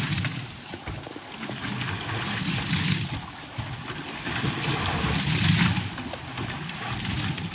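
Kubota walking tractor's single-cylinder diesel engine running, with a rushing noise that swells and fades a few times.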